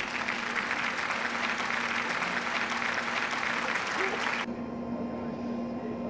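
A dense crackling hiss, like applause, that cuts off suddenly about four and a half seconds in, over a steady low hum.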